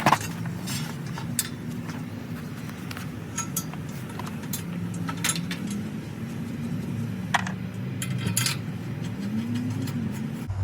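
Scattered metallic clinks and taps as steel bolts and hardware are handled and started by hand into a transfer case skid plate and frame rail, over a steady low hum.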